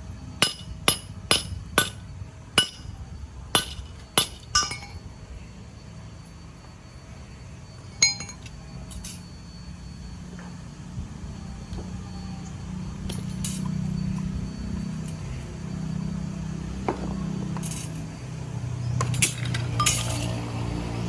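Sharp metallic clinks from a hammer tapping on metal, about two strikes a second for the first five seconds, then one more about eight seconds in. A low hum grows louder through the second half, with a few more clicks near the end.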